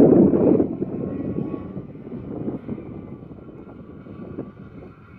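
Can-Am Renegade 1000 ATV's V-twin engine running, loud for the first second, then dropping off and fading steadily as the quad moves away.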